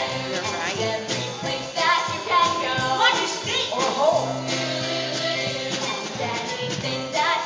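Live stage-musical song: cast voices singing over backing music with a steady bass line.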